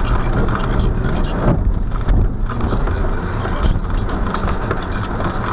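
Inside a VW Passat B6 driving slowly over a rutted, muddy forest track: a steady low rumble of engine and tyres, broken by frequent small knocks and clatters as the car rides over the rough ground.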